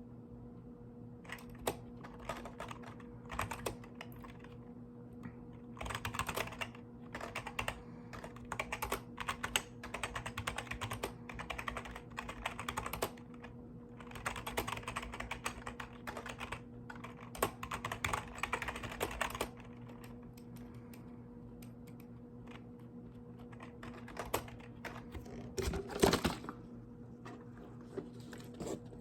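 Mechanical keyboard being typed on in quick runs of clicky keystrokes, with short breaks between runs and a longer lull about two-thirds through. A few louder key strikes come near the end, over a steady low hum.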